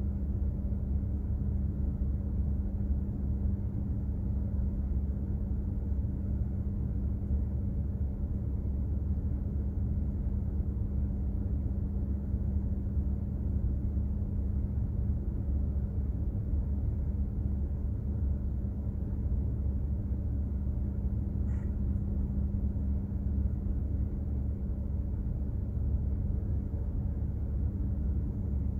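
Container ship under way: a steady low rumble of the ship's engines and machinery, with a constant hum running through it.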